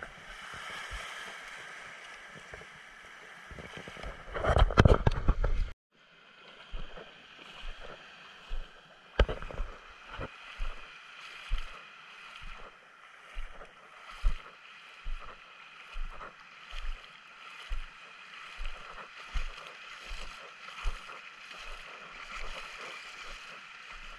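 Small waves washing over a rocky, pebbly shoreline, a steady hiss, with footsteps thudding about once a second as someone walks along the water's edge. About five seconds in, a loud rush of noise cuts off suddenly.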